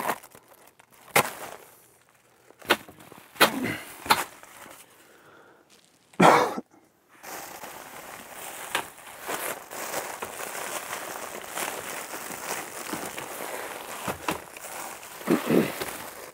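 Scattered knocks and clicks as someone shifts about on attic joists. A louder bang comes about six seconds in, then a steady rustle and crinkle of foil-wrapped flexible duct and insulation being handled.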